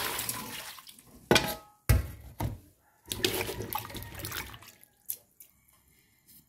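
Tap water running and splashing into a bowl of yam cubes in a stainless-steel sink as they are rinsed and swirled by hand. Two sharp knocks come about a second and two seconds in, and the water noise stops about four and a half seconds in.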